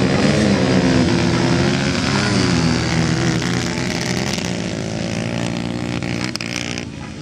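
Motocross dirt bike engines revving, their pitch rising and falling with the throttle, slowly getting quieter as the bikes move away.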